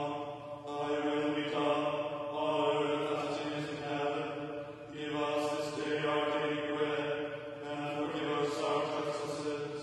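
A man's voice chanting liturgical words on a nearly steady note, in short phrases with brief breaks between them, in the manner of monotone (recto tono) Anglican chant.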